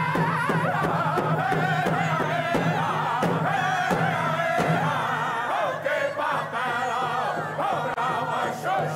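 Group of Native American singers chanting in unison to a steady beat on hand-held frame drums, with a low steady hum underneath.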